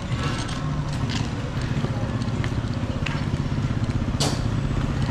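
Street traffic: a steady low engine hum with motorcycles going by, and one sharp click about four seconds in.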